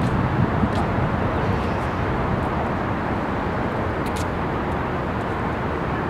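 Steady road traffic noise, a constant low rumble with no single vehicle standing out, with a brief faint high tick about four seconds in.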